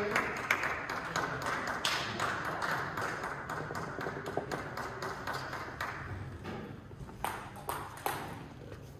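Table tennis rally: the celluloid-type ball clicking in a quick run of sharp taps as it hits the bats and the table, in a reverberant hall.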